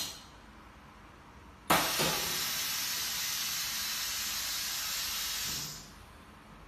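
A short click, then a sudden loud rush of air hissing steadily for about four seconds and fading out, as the lid of a vacuum pressure impregnation tank lifts open.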